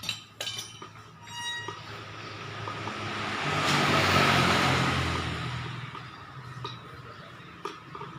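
A motor vehicle passing by, its engine and road noise rising to a peak about halfway through and then fading away. Near the start there are a few clicks and a short metallic squeak.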